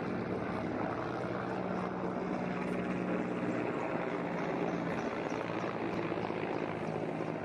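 Mil Mi-17 transport helicopter running on the ground with its rotor turning: a steady drone over a low hum.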